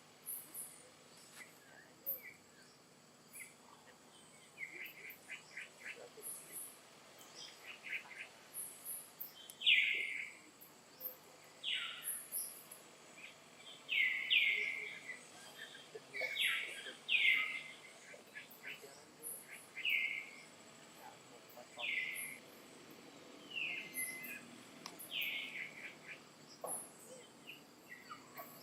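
A series of short, high chirping calls. Bursts of quick stuttering chirps alternate with longer calls that fall in pitch, the loudest of them from about 10 to 17 seconds in.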